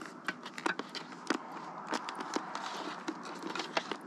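Irregular plastic clicks and rustling from hands working the interior liner and pads of a modular motorcycle helmet while fitting intercom speakers, with a faint steady hiss behind.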